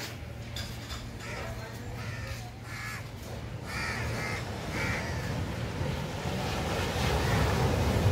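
Harsh bird calls repeated several times in the first five seconds, over a steady low rumble of wind and surf that grows louder near the end.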